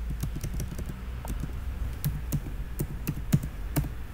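Typing on a computer keyboard: irregular keystrokes, a few of them louder, over a steady low hum.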